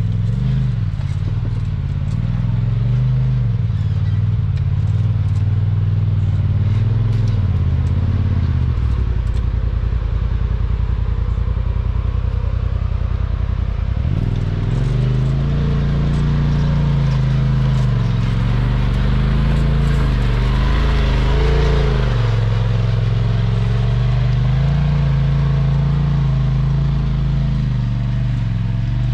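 Off-road vehicle engine running under changing throttle on a rough trail, its note rising and falling, with some clatter. The note holds steady for several seconds about a third of the way in, and the rattle is loudest about two-thirds of the way through.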